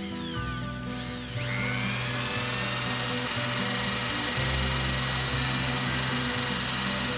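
Electric drill spinning up about a second and a half in, then running at a steady speed with a high whine, over background music.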